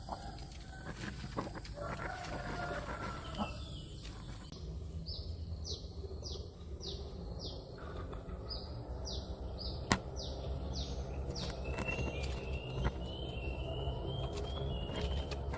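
Wild bird calling: a series of about ten short, high notes, each falling in pitch, repeated steadily, then a run of lower, quicker chirps near the end, over a low steady rumble, with a single sharp click partway through.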